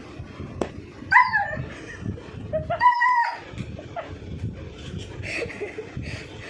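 German shepherd puppy giving two short, high-pitched yelps, one about a second in and one about three seconds in.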